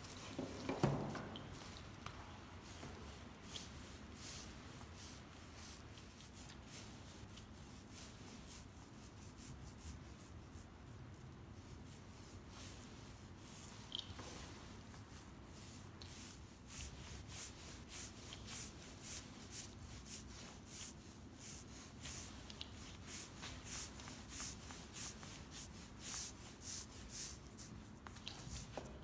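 Small foam roller being worked back and forth over plywood, spreading wet epoxy, with a soft swishing rub on each stroke. The strokes settle into a steady rhythm of about one a second in the second half. There is a single soft knock about a second in.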